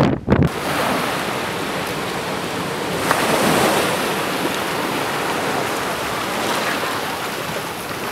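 Seawater rushing and washing across a flooded harbour-front road and over the quay edge in a storm tide, a steady hiss of moving water. It opens with a brief gust of wind buffeting the microphone.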